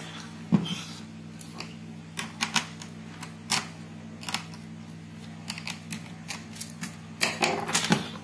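Plastic clicks and knocks from a Compaq Presario C700 laptop's top cover being pried and handled, its clips letting go. There is one louder knock about half a second in and a quick run of clicks near the end.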